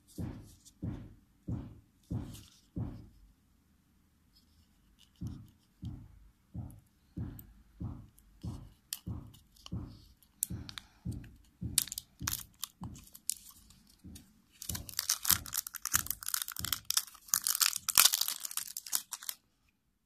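Clear plastic wrapping on a spool of twisted wire being torn off and crumpled, a dense loud crackling in the last few seconds. Before that, a regular soft low thud comes about every 0.6 seconds, pausing briefly.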